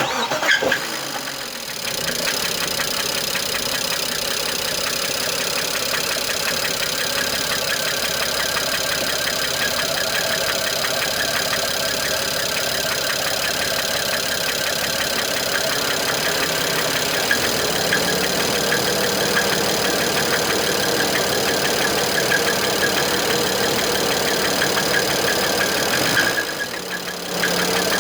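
BMW N54 twin-turbo straight-six starting up, then running steadily with a rapid knocking through the running sound. The knock is a bad bearing, with copper throughout the engine oil.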